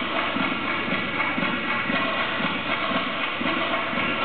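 Skating program music played over the rink's loudspeakers: a steady beat, about two pulses a second, under a constant hiss.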